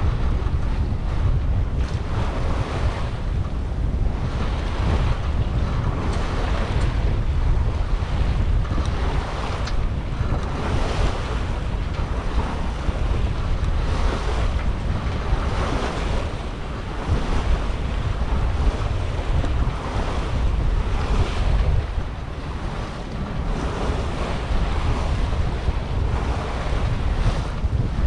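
Wind buffeting the microphone on a sailing yacht under way in a fresh breeze, with water rushing and splashing along the bow in repeated surges every second or two.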